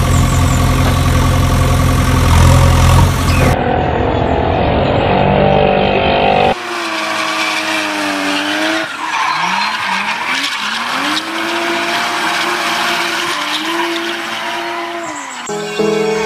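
Dubbed vehicle engine sound effects. A low, steady engine hum gives way after about three and a half seconds to a different engine sound. From about six seconds in, an engine revs, its pitch rising and falling again and again. Music starts just before the end.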